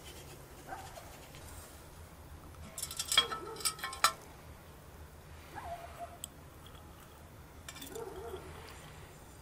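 A black metal kettle being handled: a quick run of sharp metal clanks and rattles from its lid and handle, a little past the first third, with a short ring after each knock.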